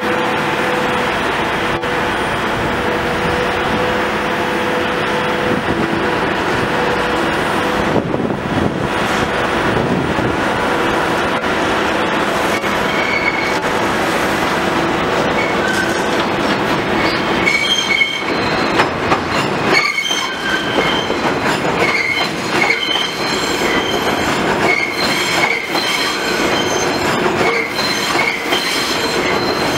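An R160 subway train running on the steel elevated structure, coming round the curve through the switches and passing close by. A steady dense rumble gives way, from a little past halfway, to repeated short high-pitched wheel squeals and wheels clacking over rail joints and switches.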